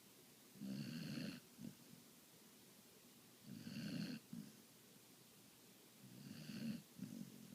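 A sleeping pet snoring: three snores about three seconds apart, each under a second long and followed by a short second breath sound.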